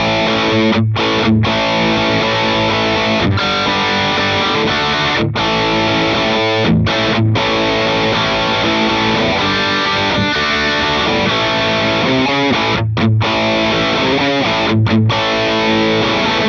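Electric guitar played through the Line 6 HX Stomp's Compulsive Drive, a digital emulation of the Fulltone OCD overdrive, into a clean amp: a distorted rock riff with a few brief stops between phrases.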